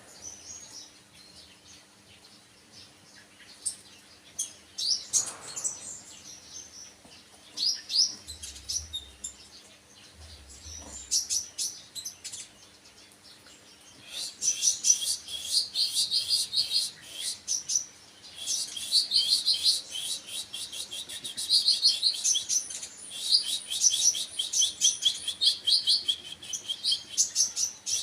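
Kolibri ninja (brown-throated sunbird) singing: high, rapid twittering chirps, scattered at first, then long fast runs of notes from about halfway through.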